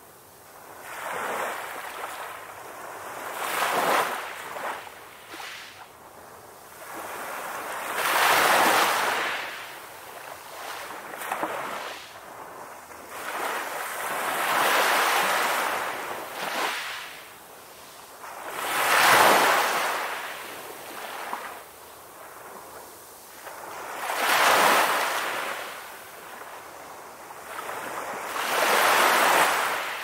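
Ocean surf: waves breaking and washing up the shore, the rush swelling and falling away about six times, every four to five seconds.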